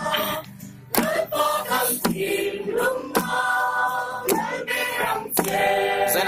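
A group of young voices singing a Christmas carol together, holding long notes, with a sharp beat about once a second.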